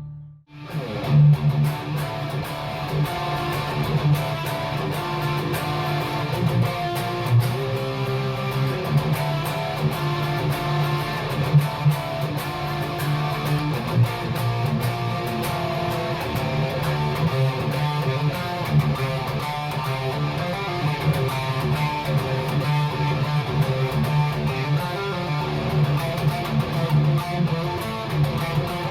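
PRS Custom 24 electric guitar being played, strummed and picked without a break after a short gap right at the start.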